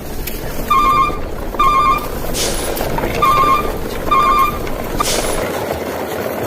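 A truck beeping: four short, high electronic beeps in two pairs, about a second apart, over a steady low engine rumble, with two brief whooshes in between.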